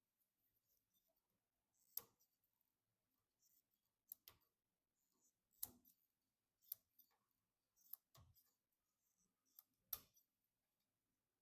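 Scattered light clicks and taps of computer parts being handled and fitted during a PC build: about nine sharp, irregular clicks, a pair close together a little past 4 s and another pair near 10 s.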